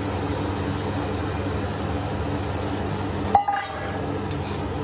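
A steady low hum, with a single sharp metallic clink about three and a half seconds in as a steel ladle strikes the rim of an aluminium pressure cooker.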